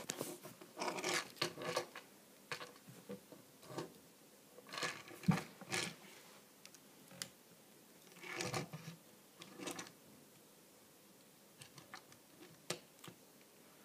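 Hard plastic parts of a Transformers Megatron action figure clicking and scraping as its joints are turned and folded by hand: scattered sharp clicks and a few short rustling scrapes.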